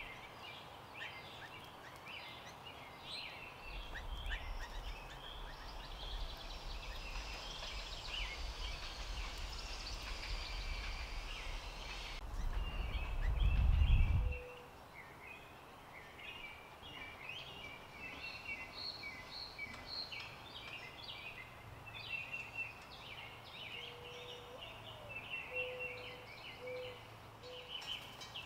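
Outdoor birdsong: many small birds chirping and twittering in a dense, continuous chorus. A low rumble builds through the first half and stops abruptly about halfway through.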